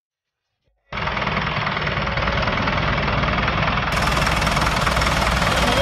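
Diesel tractor engine running with a steady low rumble, starting abruptly about a second in.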